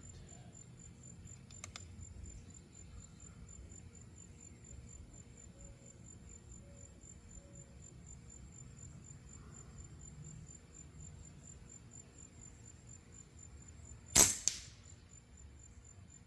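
A single rifle shot about fourteen seconds in, sharp and loud, with a smaller sound a split second after it. Steady insect chirring, an evenly pulsing high tone, goes on underneath.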